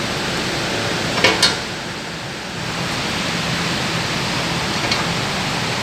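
Two short metallic clinks about a second in, as a steel pipe is set over a new washing-machine drum bearing in a press, with another faint click near the end. Under them runs a steady rushing noise with a low hum.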